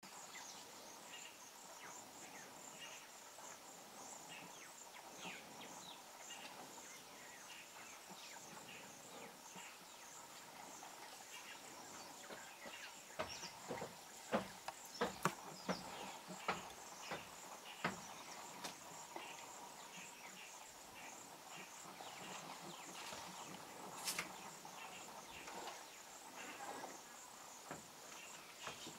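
Steady high-pitched chorus of insects trilling. A run of short sharp knocks about halfway through, the loudest moments, with one more a little later.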